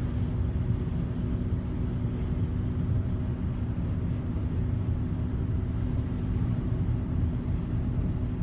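Steady road and engine noise inside a moving car: a continuous low rumble with a constant hum that does not rise or fall.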